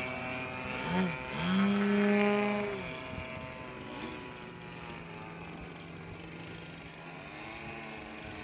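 Large-scale RC aerobatic plane's ZDZ 180 petrol engine with canister mufflers, droning overhead. It is loudest about one to three seconds in, with the pitch sweeping up and back down as the plane passes and the throttle changes, then settles to a quieter, steady drone.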